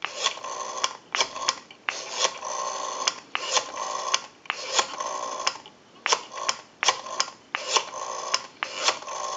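Western Electric Spacesaver telephone's rotary dial being dialled, digit after digit. The finger wheel is pulled round and let go each time, and it clicks in runs as it spins back.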